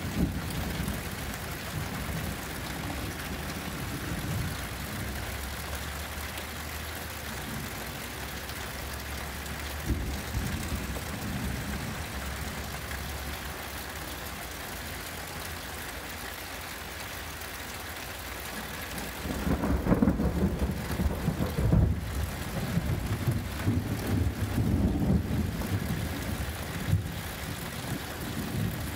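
Thunderstorm at night: steady rain with thunder rumbling low underneath. About twenty seconds in, a louder rolling rumble of thunder swells and carries on unevenly.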